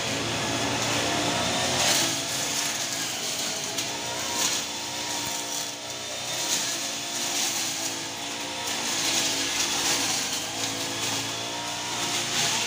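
Petrol brush cutter engine running as it cuts grass, its pitch rising and falling as the throttle is worked.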